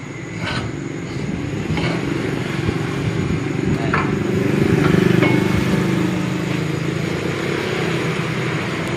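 Steady low rumble of motorbike and street traffic. Over it come a few sharp metal clicks and knocks as a stiff, freshly painted threaded screw on a motorcycle rim-straightening machine is turned by hand.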